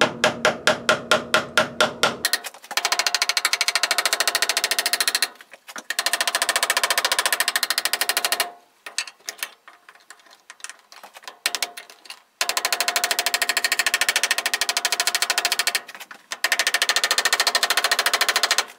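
A small steel hammer tapping lightly around the rim of a brass ferrule, crowning its edge tight against the wooden handle. The first couple of seconds are separate taps at about four a second; after that come long runs of very fast, even tapping, broken by a few short pauses.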